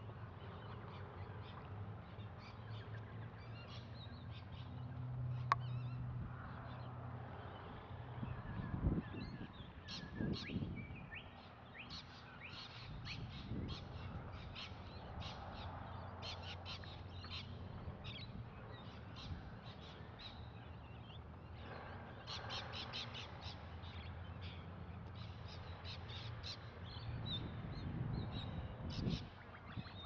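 Wild birds calling, in several runs of quick, short, sharp notes, over a low steady rumble.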